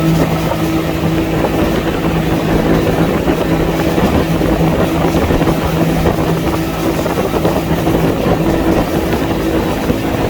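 Motorboat engine running steadily under way: a constant drone over a dense rushing noise.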